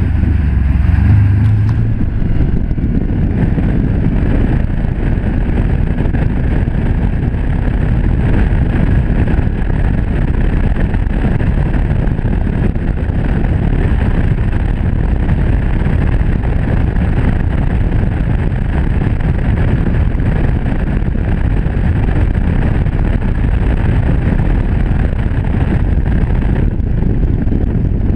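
Can-Am Commander 1000 side-by-side driving at speed, heard from the cab: a steady engine drone mixed with wind and tyre noise. A low engine hum stands out for the first two seconds, then everything blends into an even roar.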